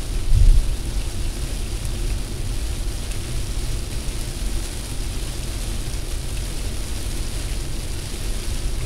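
Car cabin noise at about 80 km/h in heavy rain: a steady low road and wind rumble under the hiss of rain and spray on the body and windshield, with a brief low thump about half a second in.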